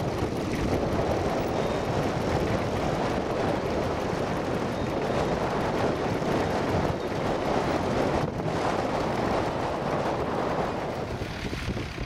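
Vintage Ferguson tractor's engine running steadily under load as it pulls a two-furrow mounted plough through turf.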